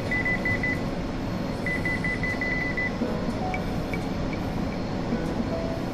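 Rapid electronic beeping: a single high tone pulsing about eight times a second, in two short bursts over a steady background hum, typical of an equipment alarm buzzer.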